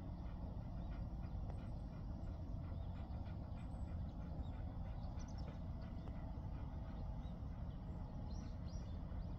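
A Jindo dog panting, over a steady low rumble of outdoor air, with a few brief high bird chirps about five seconds in and again near the end.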